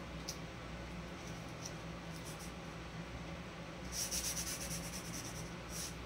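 A strip of tape being laid across a canvas and rubbed down, with a short rapid high crackle of tape peeling free about four seconds in and again briefly near the end.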